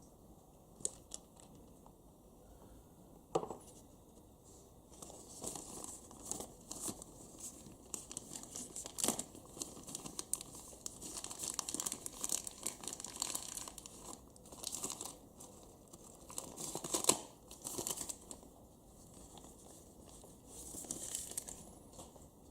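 Irregular rustling and crinkling handling noise, like paper or a rag being worked by hand, with a few sharp clicks in the first few seconds.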